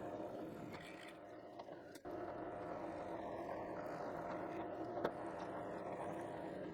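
Power drill running steadily, boring a hole, with a brief break about two seconds in.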